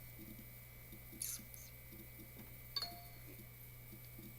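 Quiet room tone with a steady low electrical hum. A brief swish comes about a second in, and a short click, the loudest sound, just under three seconds in. No burp is heard.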